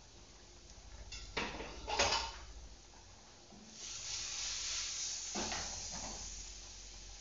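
Cookware clanking on a gas stove twice, then an aluminium frying pan of grains shaken over the burner, its contents hissing and rustling, with two knocks as it is set back down.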